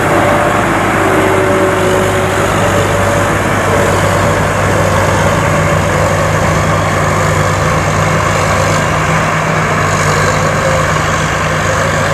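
Rice combine harvester's diesel engine running steadily, a loud low hum with machinery noise over it.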